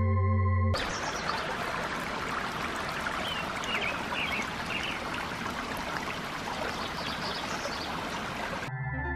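Shallow stream trickling and rippling over rocks, a steady rush of water. Soft synth music plays for the first moment and cuts back in just before the end.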